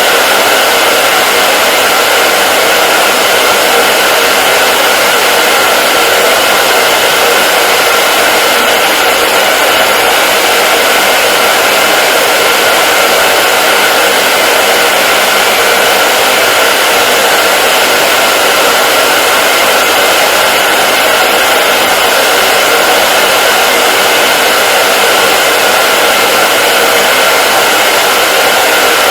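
Hair dryer running continuously: a steady, unchanging rush of air with a faint motor whine.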